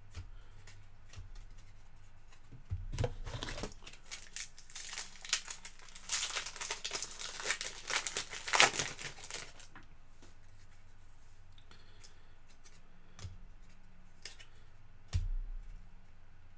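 A trading card pack wrapper being torn and crinkled in two stretches in the first half, loudest about halfway through. A few light clicks and taps of cards being handled follow.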